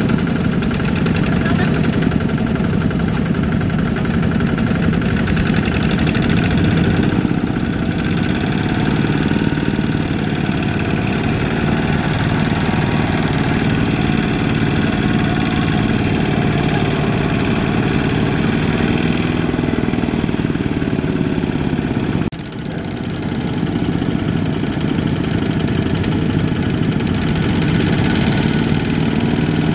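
Single-cylinder diesel engine of a Kubota ZT140 two-wheel walking tractor running steadily under load while hauling a trailer of rice sacks through mud. Its pitch wavers for a while in the middle, and there is a short dip in loudness about two-thirds of the way through.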